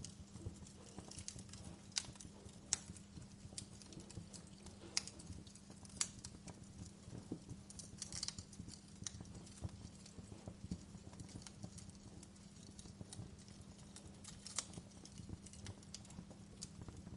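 Wood fire crackling, with sharp pops at irregular intervals over a steady low hum.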